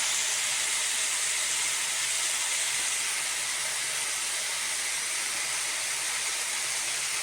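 Noodles and vegetables sizzling in a hot wok: a steady, even hiss that eases slightly over the seconds.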